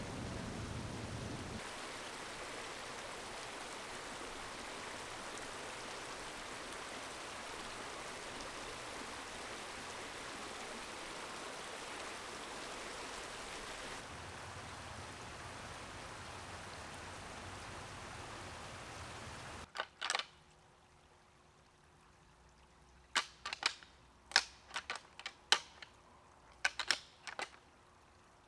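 Steady rushing of a woodland creek for about twenty seconds, cutting off abruptly. Then, over near silence, come sharp clicks and clacks: two, then a scattered run of about a dozen a few seconds later.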